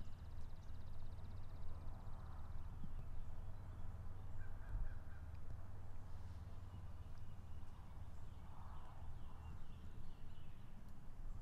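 Eastern wild turkeys gobbling faintly in the distance, once about two seconds in and again near nine seconds, over a steady low wind rumble. A small songbird trills briefly at the start.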